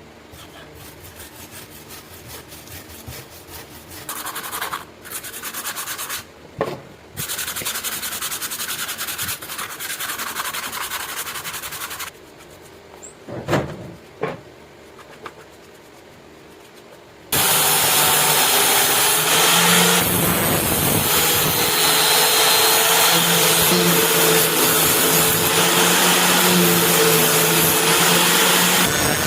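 Metal knife blade being scraped and sanded by hand to remove rust, in stretches of quick rubbing strokes with a few knocks. About 17 seconds in, a power tool starts and runs steadily with a hum, abrading the blade.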